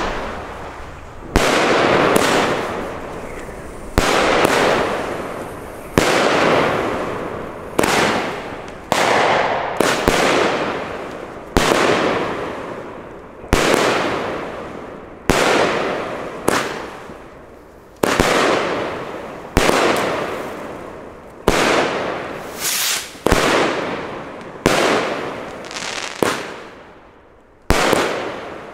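Weco Firefly consumer firework battery firing shot after shot, with a sharp bang every one to two seconds, each followed by a fading crackle of the bursting effects.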